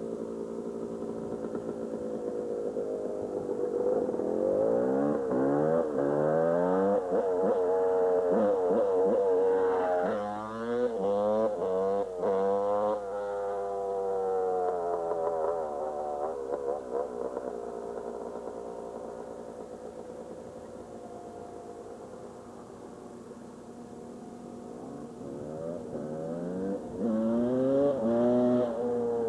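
Yamaha YZ dirt bike engine revving hard through the gears, its pitch climbing and dropping with each shift. It fades in the middle and grows loud again near the end.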